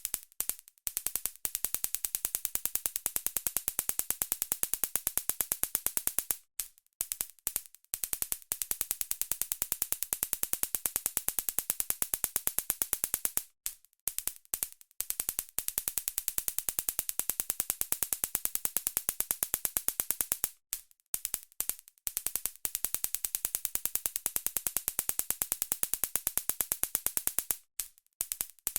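Taser stun gun arcing: a rapid, even train of sharp electric clicks, strongest in the treble, in long spells of about six to seven seconds broken by short pauses and a few brief zaps.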